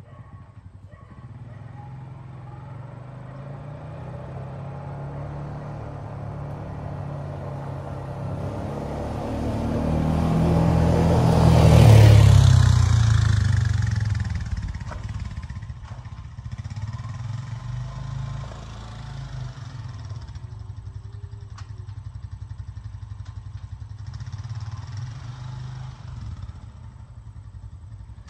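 A vehicle engine running steadily, with a loud rise and fall of engine and road noise from about eight to fourteen seconds in, as a vehicle drives past close by.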